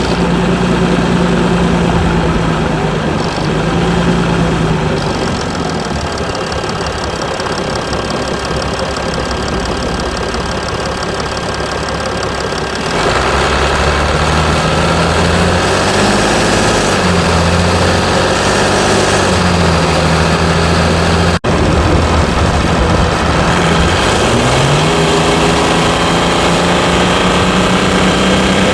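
Mercedes E320 CDI's V6 diesel engine running, its engine speed holding steady, then falling and rising several times. It gets louder about halfway through and climbs again near the end. There is a very brief cut-out in the sound about three-quarters of the way in.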